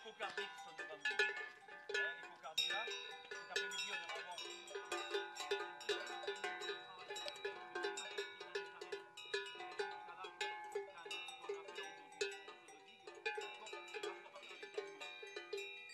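Bells hung on leather collars of a herd of Camargue cattle, clanking and ringing irregularly as the animals move about. Many strikes overlap, with no steady rhythm.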